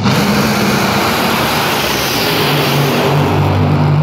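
A pair of Top Fuel dragsters' supercharged nitromethane-burning V8s at full throttle through a launch and run down the strip: a very loud roar that starts suddenly and holds steady for about four seconds.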